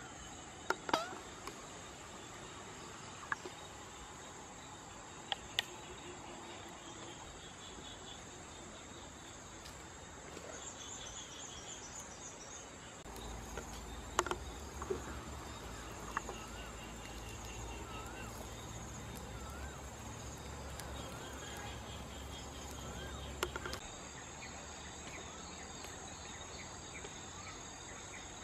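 Outdoor ambience of insects droning steadily at a high pitch, with a few bird chirps and trills now and then. A handful of sharp clicks stand out, and a low rumble comes in for a stretch in the middle.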